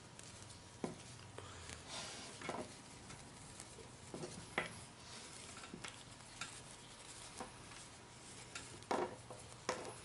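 Faint handling of a plastic Mattel Elite action figure as its cloth sweatshirt is worked onto it: soft rustling with a few scattered light clicks and taps.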